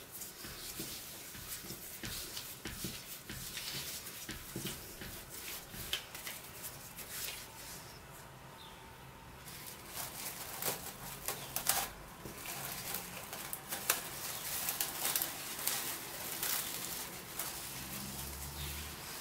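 Gloved hands kneading dough on a counter: soft rubbing and light taps. From about ten seconds in, plastic cling film crinkles and crackles as it is stretched over a glass bowl.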